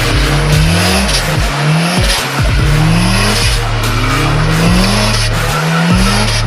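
Loud edited intro soundtrack: a rising tone repeats about once a second over a steady low drone and hiss, with no speech.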